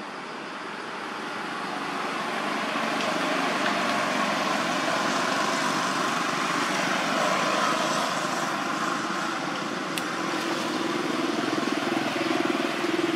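Motor traffic noise that swells over the first few seconds and then holds steady, with a single sharp click about ten seconds in.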